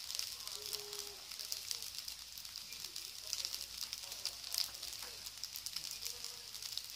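Fried rice with egg and ham sizzling in oil in a metal wok: a steady hiss with scattered crackles.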